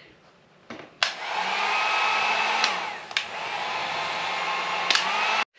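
Handheld electric hot-air blower switched on about a second in, running with a steady rush of air and a motor whine that wavers in pitch. It is heating the 3M adhesive that holds a reflector to a motorcycle saddlebag so the reflector can be peeled off. It stops abruptly near the end.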